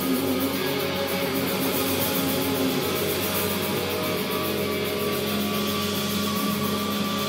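Live indie/noise-rock band playing loud, distorted electric guitars and bass, with long held notes ringing through.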